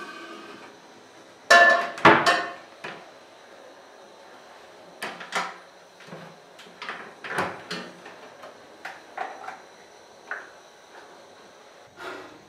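Kitchen handling sounds: a string of knocks and clunks as cookware is moved about and a wall cupboard is opened and shut. The loudest pair of knocks comes about two seconds in.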